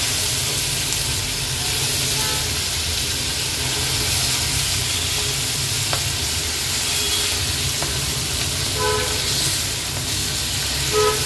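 Marinated hilsa (pala) fish pieces sizzling steadily in shallow oil in a nonstick pan, over a steady low rumble. A few light clinks come near the end.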